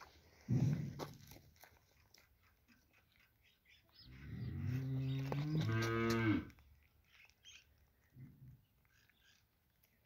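Sheep bleating: a short low call about half a second in, then one long, low, pitched bleat of about two and a half seconds starting around four seconds in. A faint brief call follows later.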